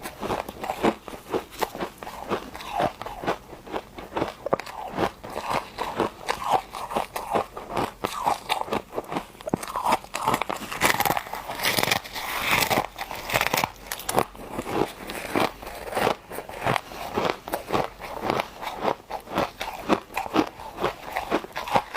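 Close-up chewing of hard, refrozen frost chunks: a dense, steady run of crisp crunches, several a second, growing sharper and brighter about halfway through.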